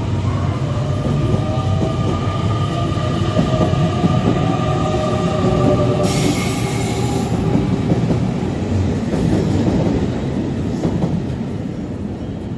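Electric train running by on the rails, with a wheel rumble and a steady whine. A short hiss comes about six seconds in, and the sound fades near the end.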